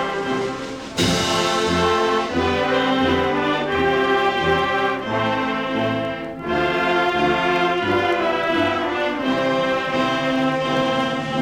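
Orchestral or band music led by brass, playing sustained chords over a steady bass line. It drops briefly and comes back in suddenly about a second in.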